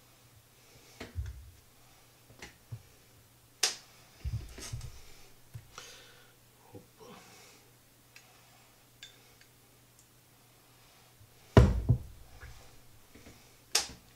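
Irregular taps, clicks and knocks of hands assembling open sandwiches on a tabletop while a glass pickle jar is handled. The loudest is a dull thump a couple of seconds before the end, followed by a sharp click.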